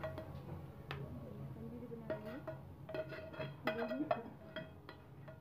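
Faint background music with a wavering melody, and a couple of light clicks.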